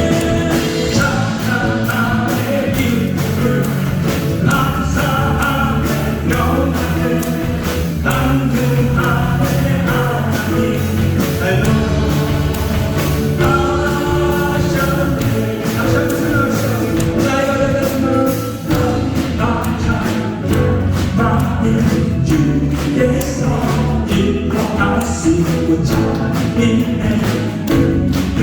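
Contemporary worship music: a praise team and congregation singing a Korean gospel song over a live band with drums.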